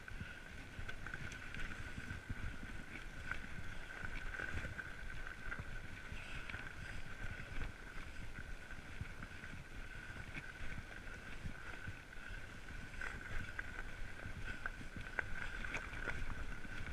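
Fat bike rolling along a packed-snow trail: a low rumble from the wide tyres on snow, with scattered clicks and knocks and a steady high whine throughout.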